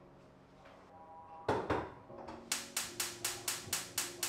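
Two knocks about a second and a half in, then a steady run of sharp strikes at about four a second, starting about two and a half seconds in.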